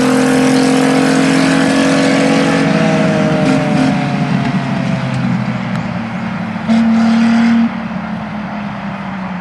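Fordson Dexta tractor fitted with a Ford Granada V6 engine running at speed, its engine note slowly falling in pitch and fading. Near the end comes a loud steady note lasting about a second.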